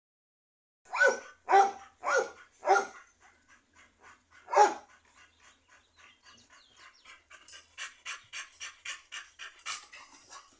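A dog barking: four quick, high barks, then one more about two seconds later. Quick, rhythmic puffs of breath follow, about three a second, growing louder near the end.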